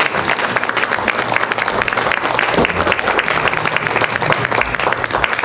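Congregation applauding in a church: dense, steady clapping from many hands.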